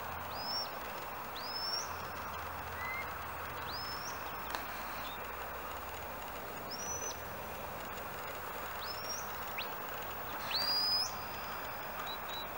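Shepherd's whistle commands to a working sheepdog: a series of short high whistles, each rising quickly and then holding its note, about every two seconds, with the longest and loudest near the end. A steady background hiss runs underneath.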